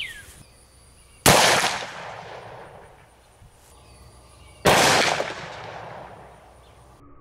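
A short-barrelled .44 Magnum revolver firing, heard twice about three and a half seconds apart. Each is a sharp report with a long echoing tail.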